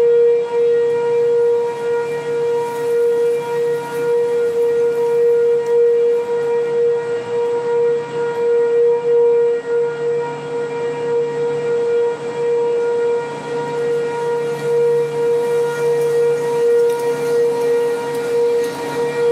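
Sentry 3V8-H outdoor warning sirens sounding the steady alert signal: one held tone that swells and fades in loudness.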